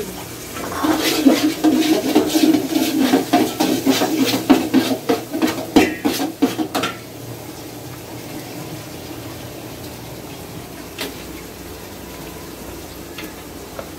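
Long metal spoon stirring and scraping against an aluminium pot of whole spices frying in oil, in quick rhythmic strokes, about three a second, for about six seconds. Then it stops, leaving a steady hiss broken by a single click near eleven seconds.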